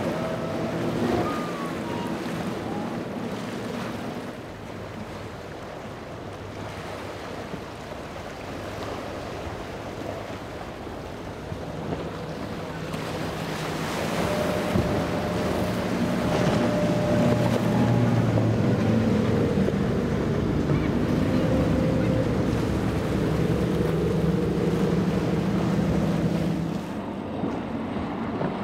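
Outboard-powered boats running at speed through waves: engine drone under the rush of spray and water, with wind on the microphone. The engine sound grows louder about halfway through.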